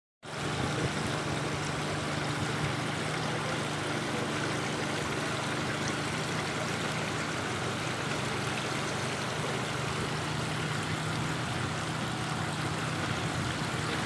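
Water from a multi-tier decorative cascade fountain spilling over its tiers into the basins below, a steady splashing trickle, with a low steady hum underneath.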